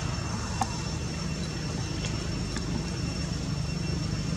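Steady outdoor background rumble with a faint, high, steady ringing tone above it, and a single sharp click a little over half a second in, followed by a couple of fainter ticks.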